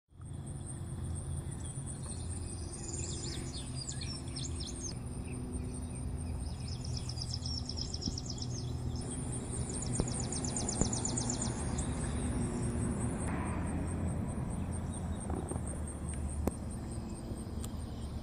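Nature ambience: rapid, evenly pulsed high-pitched chirping that comes and goes in several stretches, over a steady low hum.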